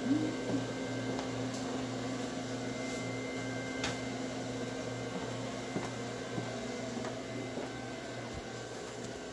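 Office multifunction photocopier humming steadily with a faint high whine, and a few light clicks and taps.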